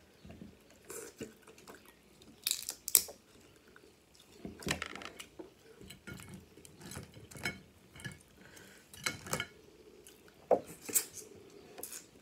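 Snow crab legs being cracked and snapped apart by hand: irregular sharp cracks and clicks of shell, the loudest about three seconds in and again near the end, with softer crunches between.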